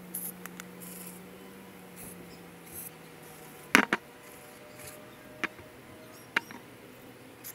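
Short hisses of an aerosol carburetor cleaner sprayed through its straw into the small holes and jets of an outboard carburetor, with a few sharp clicks from handling the can and carburetor, the loudest a double click about four seconds in.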